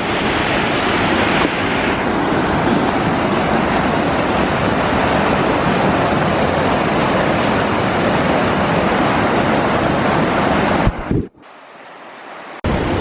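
Steady rush of fast-flowing river water. It cuts out for about a second and a half near the end, then comes back.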